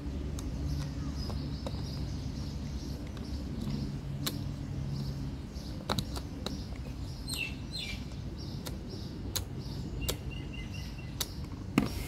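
Scattered sharp clicks and taps of small plastic and metal parts as a washing machine door lock's solenoid coil is fitted into its plastic housing, the loudest click near the end. A steady low hum runs underneath, with birds chirping in the background.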